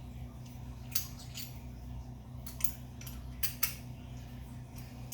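Metal drill bits and tools being handled, giving a handful of light, sharp clicks and clinks at uneven intervals over a steady low hum.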